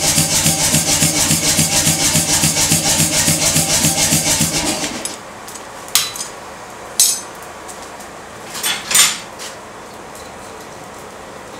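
Power hammer striking a hot steel ring in rapid, even blows, stopping about five seconds in. Then come four light metallic clinks of steel on the anvil, the last the loudest.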